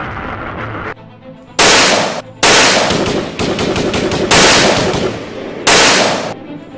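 Automatic rifle fire in a firefight: several loud shots, each ringing out briefly, with fast rattling bursts between them.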